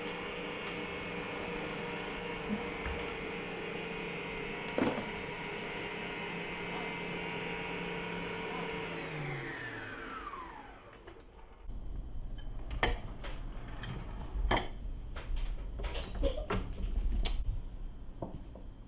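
Electric stand mixer running steadily, whisking eggs and sugar in its steel bowl, then switched off about ten seconds in, its motor whine falling in pitch as it winds down. After that, a string of sharp clicks and knocks as the mixer head is tilted up and the metal bowl is handled.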